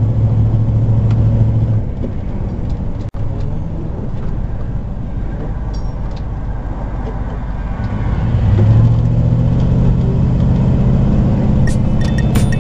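Class A motorhome driving, with a steady engine drone and road noise. The engine note drops about two seconds in and builds again around eight seconds. There is a momentary dropout just after three seconds.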